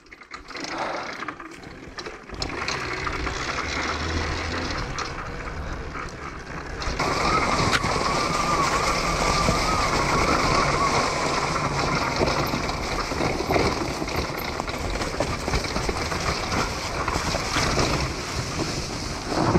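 Homemade electric dirt bike being ridden over dirt and leaf-covered trail: a steady rush of wind on the microphone and tyre and chassis noise, with no engine sound. It gets louder about seven seconds in, where a faint electric motor whine comes through for a few seconds.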